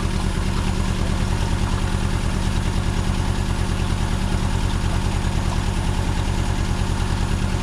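Car engine running steadily with a regular low pulsing beat, with no rise or fall in revs. The owners bet it has a misfire somewhere, with water in the engine coming out of the valve cover.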